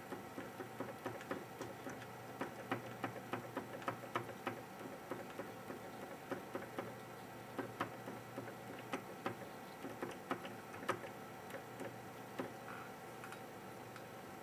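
Cotton swab scrubbed back and forth over the solder balls of a GPU chip. It makes irregular small ticks and scratches, several a second, with a short lull in the middle, over a steady background hum.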